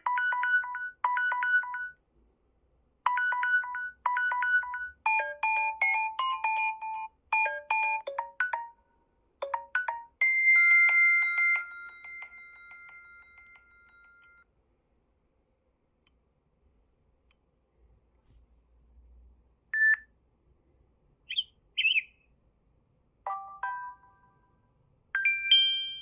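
Samsung Galaxy A5 (2016) built-in alert tones previewed one after another: a quick run of short electronic chimes and little melodies, one held tone among them, then a few scattered short blips and pops in the second half.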